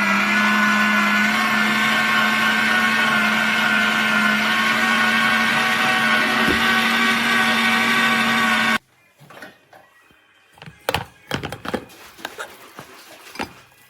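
Electric meat grinder's motor running at a steady speed with a humming whine, cutting off suddenly about nine seconds in, followed by a few light knocks and clicks.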